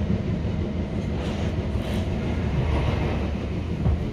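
Passenger train heard from inside the carriage while running at speed: a steady low rumble from the wheels on the rails, with a few faint ticks.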